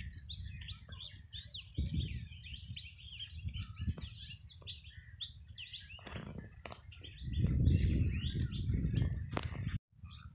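Many small birds chirping in quick, high calls, over a low rumble that swells for a couple of seconds in the latter half.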